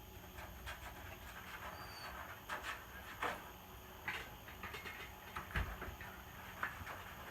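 Supreme 48-inch ceiling fan running with a low steady hum, with a dozen short irregular rustling and knocking sounds over it.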